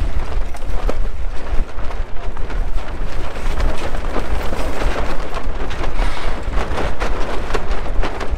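Wind blowing across the camera's furry microphone windscreen: a loud, continuous low rumble of buffeting, with short sharp rustles and snaps breaking through it.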